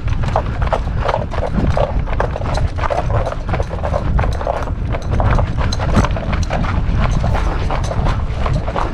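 Quick running footsteps with a busy, irregular clatter of knocks and rattles.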